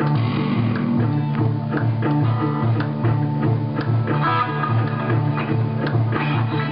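Instrumental band music led by guitar, with a bass line and a steady beat.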